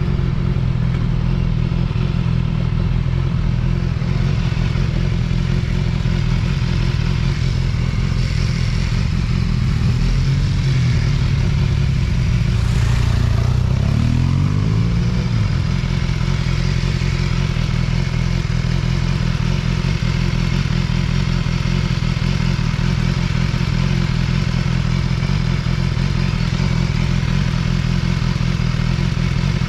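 Vehicle engine running steadily under way, heard on board over road and wind noise, its pitch rising briefly about halfway through.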